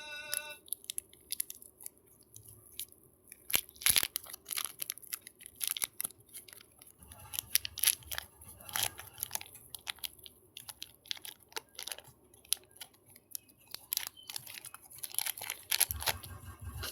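Hands squeezing and pulling soft modelling clay out of its plastic packaging: irregular crackling, crinkling and tearing of the wrapper, in many short clicks.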